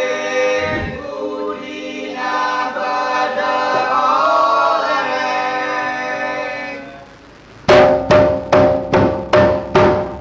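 Accompaniment music for a traditional Madurese dance: a voice sings long held notes over a single low drum beat, then drops out. Near the end come six sharp struck-percussion strokes, about two a second, each leaving a ringing pitched tone.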